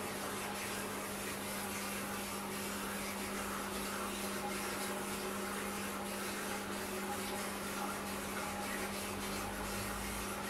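Steady hum with an even hiss from the terrarium's equipment, running without change.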